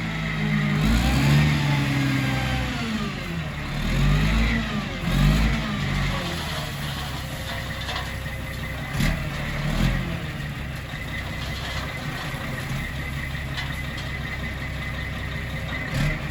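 Engine of a dump truck delivering a load of asphalt millings, revving up and down several times and then running steadily.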